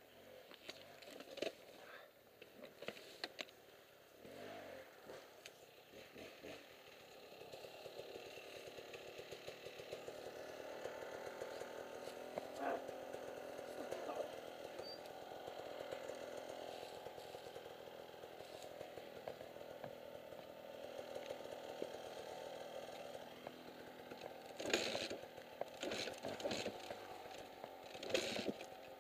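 Dirt bike engine idling steadily at a standstill, with a few sharp knocks near the end.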